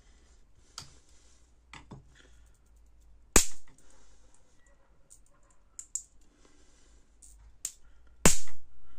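High-voltage sparks from a homemade capacitor-and-diode voltage multiplier, run off 220 V mains, snapping across to a screwdriver tip at the bare output wires. There are two loud cracks about five seconds apart, with several fainter clicks before and between them.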